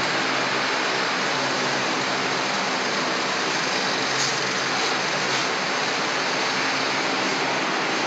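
Steady, unchanging machine noise, an even hiss-like whir with a faint low hum.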